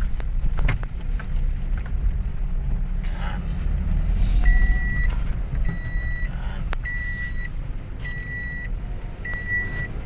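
Toyota Wigo on the move, its engine and road noise a low rumble inside the cabin, pulling well with its cylinder 2 misfire cleared. About four and a half seconds in, a high warning beep starts, repeating roughly once a second.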